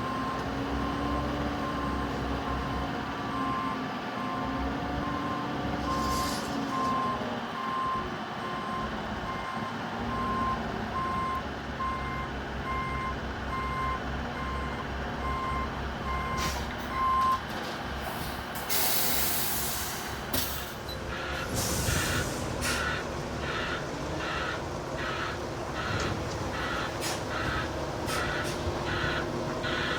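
Concrete mixer truck backing up, its diesel engine running under a reversing alarm that beeps about once a second and stops a little past halfway. A loud air-brake hiss follows, then a second, higher-pitched reversing alarm beeping faster, about twice a second.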